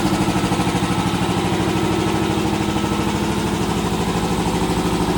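Speedaire 25 HP two-stage piston air compressor running steadily, its pump pulsing in a fast, even rhythm over a steady hum.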